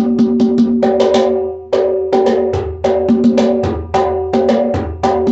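Bougarabou goblet drum with a cowhide head played by hand in a quick, steady rhythm: ringing open and slap tones several times a second, with a deep bass stroke falling about once every second or so.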